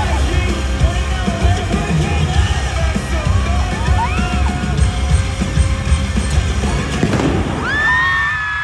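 Loud live K-pop music in a concert arena, with a heavy pulsing bass beat and voices over it. A long high note is held from near the end.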